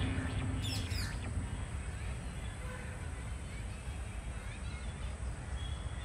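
Outdoor ambience: a steady low rumble with a few faint bird chirps.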